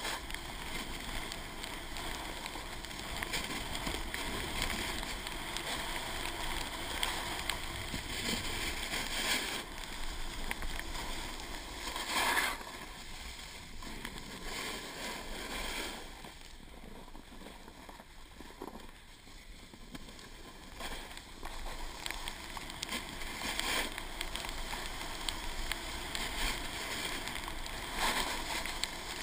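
Wind rushing over the camera microphone and a snowboard's edges scraping the snow while riding downhill. There is a brief louder gust about twelve seconds in and a quieter stretch a little past the middle.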